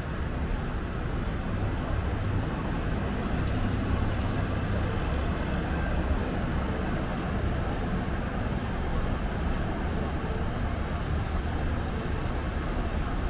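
Steady city traffic noise from the roads below: a continuous low drone of engines and tyres with no single vehicle standing out.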